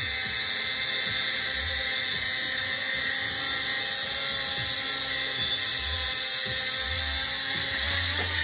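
Blizzard toy quadcopter drone in flight, its small electric motors and propellers whirring with a steady high-pitched whine.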